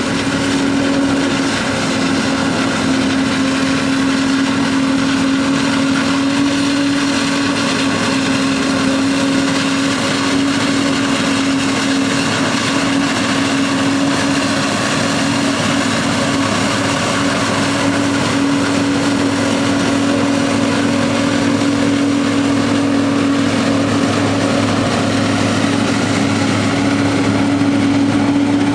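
Heavy farm machinery running steadily at working speed during corn silage harvest: an even, loud drone with a constant hum that neither rises nor falls.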